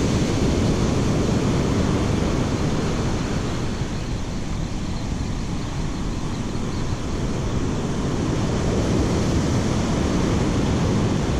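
Surf breaking and washing up a sandy beach, mixed with strong wind buffeting the microphone: a steady rush of noise with no breaks.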